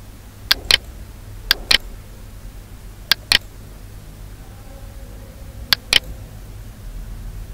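Computer mouse button clicking: four quick double clicks, each a pair of sharp ticks, spaced one to two and a half seconds apart over a low steady hum.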